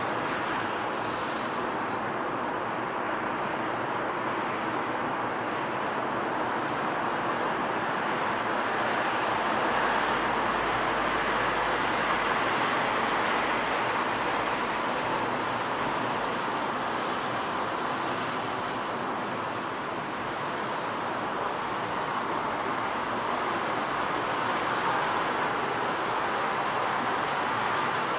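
Steady distant traffic noise, swelling slightly partway through, with brief high bird chirps every few seconds.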